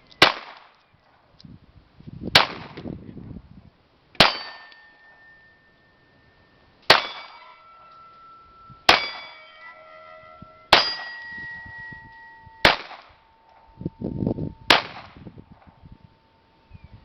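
A string of eight gunshots about two seconds apart, fired at steel targets. Most shots are followed by a steel plate ringing with a clear tone as it is hit.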